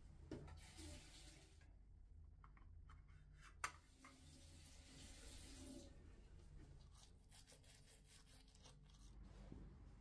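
Faint bathroom tap running in two short spells while a toothbrush is wetted, with one sharp click between them.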